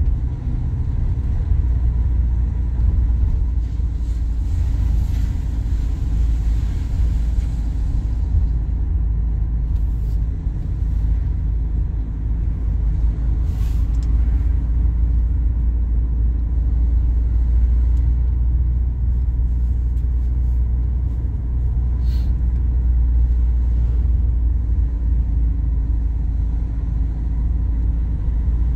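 A car driving along a road: a steady low rumble of engine and road noise, with extra hiss between about four and eight seconds in.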